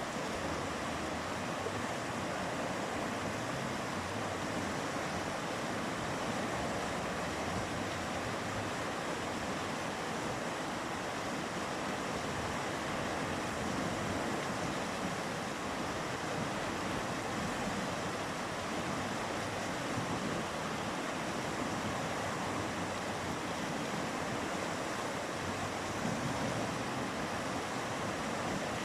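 Mountain river flowing, a steady rushing of water.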